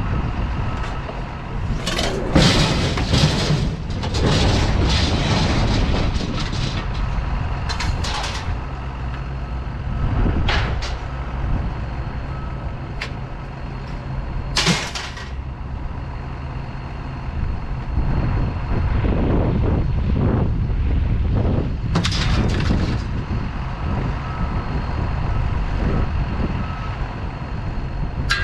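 A vehicle engine running with a steady low rumble, broken by several short hissing bursts, a cluster of them a couple of seconds in and single ones later.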